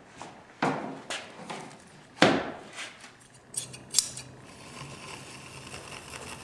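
Sharp knocks and clatter of ski parts being handled on the bench, the loudest about two seconds in. A quick run of crisp scissor snips follows, trimming fiberglass cloth, and a faint steady hum comes in about halfway through.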